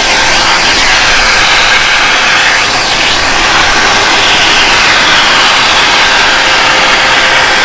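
Fujihama BJ1623 1200 W wet-and-dry canister vacuum cleaner running: a loud, steady rush of air from its motor, with a faint steady tone throughout.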